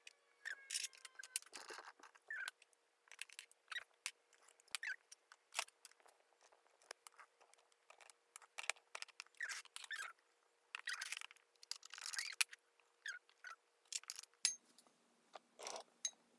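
Grown Orbeez water beads being scooped with a small spoon and dropped into clear plastic dispenser tubes: an irregular run of soft clicks and taps, with a few short squeaks.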